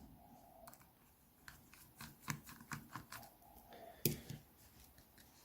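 Faint small clicks and ticks of hand work on a Baofeng UV-5R handheld radio: an Allen key backing the last case screws out and the radio being handled, with one sharper click about four seconds in.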